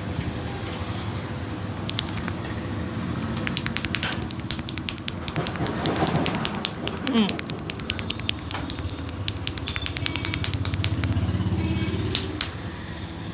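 Rapid run of sharp slaps and taps from a barber's hands working over a head during a massage, several a second, over steady street traffic.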